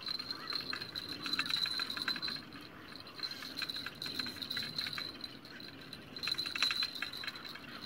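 Night insect chorus: crickets trilling steadily in a high pitch, broken briefly a couple of times, over bursts of rapid clicking from other insects.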